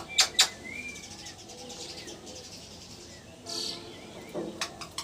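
Ringneck parrot calling: two short, loud squawks near the start, soft chirps in between, then a burst of several short, loud calls near the end.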